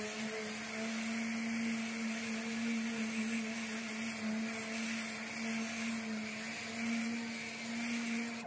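Random orbital sander with a dust-extraction hose running steadily while sanding body filler on a car fender: a constant motor hum over a steady hiss.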